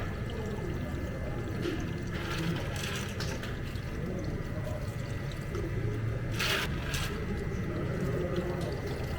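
Cafe counter work sounds: a steady low machine hum with a faint high tone and liquid sounds, and a short burst of hiss about six and a half seconds in.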